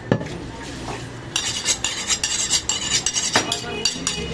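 Butcher's steel blade working against metal: a quick run of scraping, clinking strokes that ring at high pitch, with a few heavy chopping knocks at the start and near the end.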